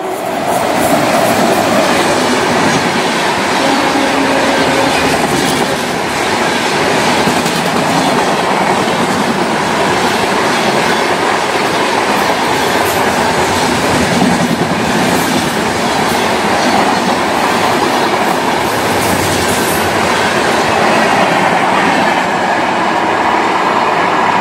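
Express passenger train passing at high speed close by: a loud, steady rumble of wheels on rail with a rapid clickety-clack of the coaches' wheels over the rail joints.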